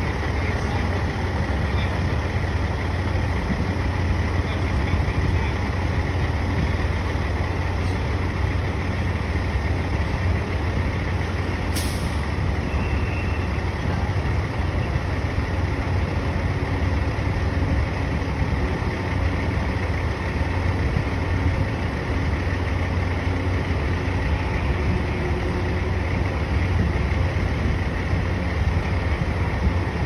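Steady low rumble of heavy diesel engines running, with city street noise and a brief click about twelve seconds in.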